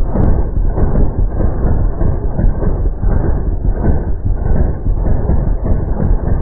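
Full-auto assault rifle fire slowed down with the slow-motion picture, the shots smeared into a continuous deep rumble with a rapid uneven pulse.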